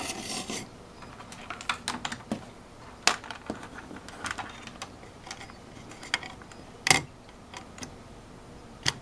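Irregular sharp clicks and light knocks of small hard objects being handled, with a short rustle at the start and the loudest clicks about three, seven and nine seconds in.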